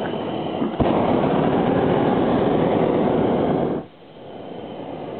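Hot air balloon's propane burner firing overhead: a steady rush that turns into a louder blast about a second in and cuts off abruptly about three seconds later as the blast valve closes.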